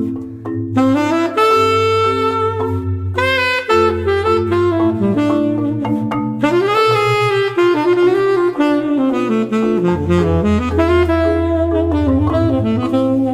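Jazz music with a saxophone playing a flowing melody over sustained bass notes.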